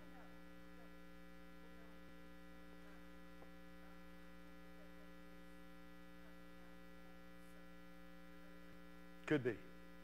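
Steady electrical mains hum in the sound system, with faint, distant talk underneath. A man's voice comes in close to the microphone near the end.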